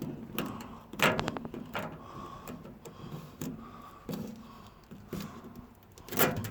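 Handling noise in a metal tool chest drawer: scattered clicks and knocks, with a quick rattle of clicks about a second in and a louder knock near the end.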